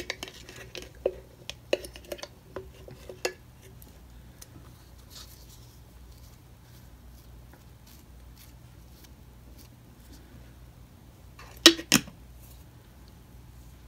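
A bottle of rubber cement with a metal brush cap is handled and opened with a run of small clicks and scrapes. Then comes a long quiet stretch while the cement is brushed on. About twelve seconds in there are a few sharp clacks as the cap goes back on the bottle.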